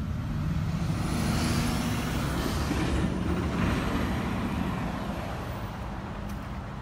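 A heavy road vehicle's engine rumbling as it passes, swelling between about one and four seconds in and then fading, with a faint high whine gliding down at its loudest.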